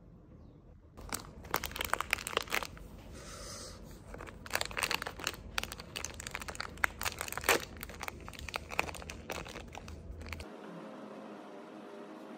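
A wrapper or packaging crinkling and rustling in the hands as it is handled or opened, a run of irregular crackles that stops suddenly near the end.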